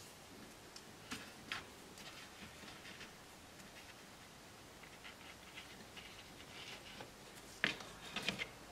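Faint handling sounds of an elastic cord being laid along a plastic ruler on paper: soft rustles and scattered light clicks, with a sharper tick and a short cluster of taps near the end.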